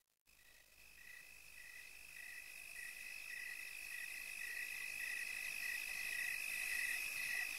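Crickets fading in as a night ambience: one steady high trill, with a second cricket chirping in an even rhythm about twice a second, growing gradually louder.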